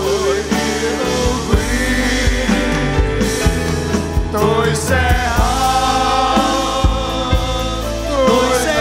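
Live Christian worship music: a band with drums and bass backing a group of singers in a praise song, the voices holding long notes through the middle.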